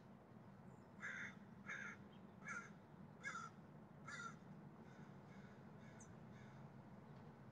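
A crow cawing: five caws in a row, a little under a second apart, starting about a second in, then a few fainter calls. A low steady hum lies underneath.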